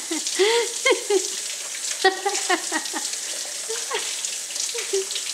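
Kitchen faucet running, the stream splashing over a bell pepper being rubbed clean by hand and into a stainless steel sink, with a steady hiss and short gurgling notes.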